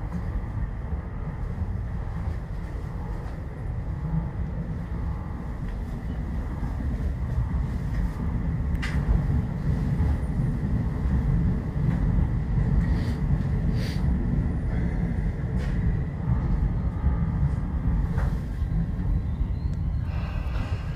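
Tobu 10030 series electric train running along the track with a steady low rumble. A few sharp clicks of the wheels crossing rail joints come through, about four of them spread over the second half.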